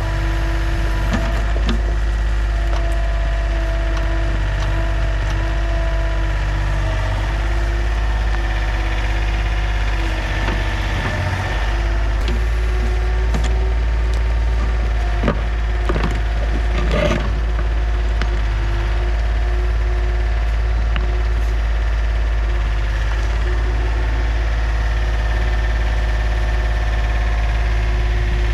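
John Deere 30 compact excavator (a Yanmar-built machine) running steadily under load while digging, its diesel engine rumbling with a whine that shifts in pitch as the hydraulics work. A few sharp knocks and clunks of the bucket in the dirt come around the middle.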